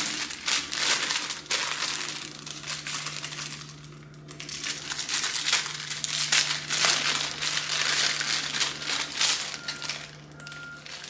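Clear plastic packaging crinkling as it is handled and pulled open from around a boxed pair of sunglasses, in two stretches with a short lull about four seconds in. Near the end a reversing alarm starts beeping faintly in the background.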